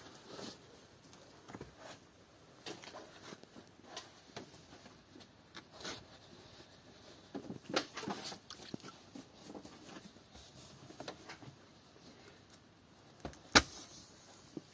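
Scattered light clicks and knocks, with one sharp, louder click near the end.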